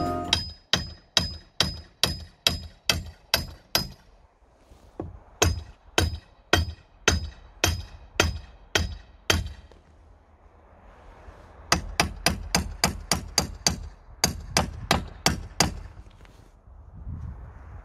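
Hand hammer striking the wooden leg of a roof support. The blows come in three runs at about two to three a second, each blow sharp with a short ring, and there are brief pauses between the runs.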